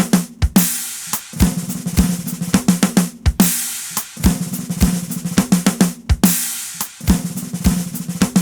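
Recorded drum kit, with kick and snare hits, played back through the Shadow Hills mastering compressor plugin on its Steel setting. A short section of the drum track repeats about every three seconds.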